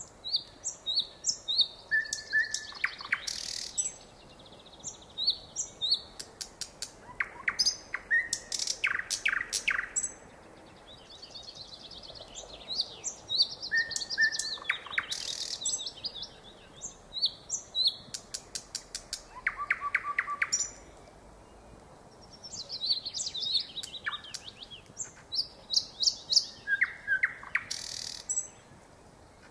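Nightingale singing: phrases of fast repeated notes, clicks and clear whistles, each a few seconds long, broken by pauses of about two seconds.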